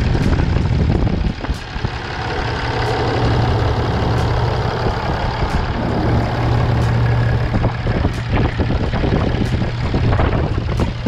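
Cummins 6.7-litre turbo diesel inline-six of a Ram 2500 pickup idling steadily, freshly started, heard close up with the hood open.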